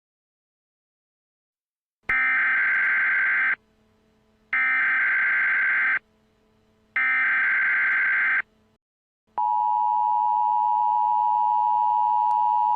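Emergency Alert System SAME header: three bursts of harsh digital data tones, each about a second and a half long, beginning about two seconds in. They are followed about nine seconds in by the steady two-tone EAS attention signal.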